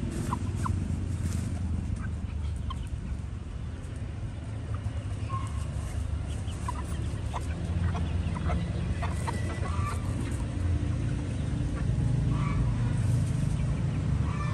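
A flock of young chickens making short, scattered clucks and peeps while foraging, over a steady low rumble.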